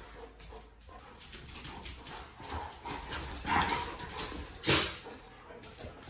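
Several dogs playing and wrestling, whining excitedly, with a short sharp bark just before the end.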